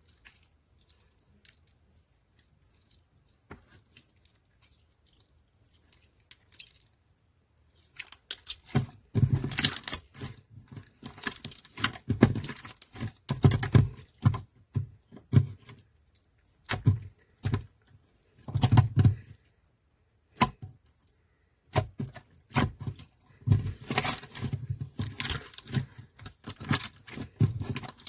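Pink slime being squished and stretched by hand, giving sticky popping and crackling clicks. Sparse and faint at first, then dense clusters of crackles from about eight seconds in.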